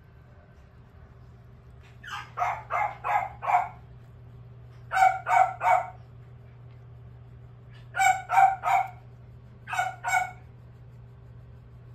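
A small terrier puppy giving short, pitched vocal calls in quick runs: five calls, then three, three and two, about three a second.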